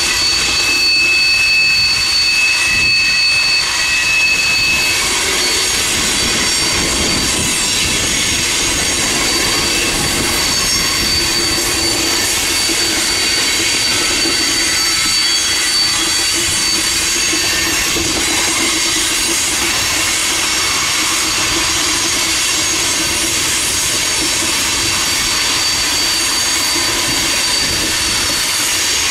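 Freight train cars rolling past with their steel wheels squealing. A high squeal holds steady throughout, and a second, lower squeal drops out about five seconds in.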